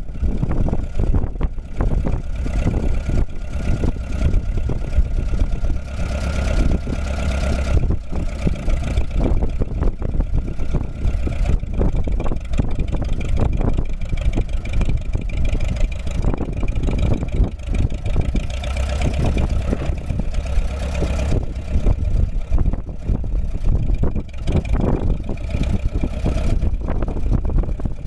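1952 Massey-Harris Model 33 tractor's four-cylinder engine running steadily.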